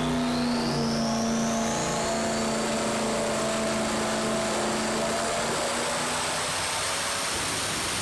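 Turbocharged 6.0-litre LS V8 with a BorgWarner S480 turbo and a 4.0-inch downpipe running hard on an engine dyno: a steady, dense engine and exhaust noise with a high whine that rises in pitch over the first several seconds and then levels off.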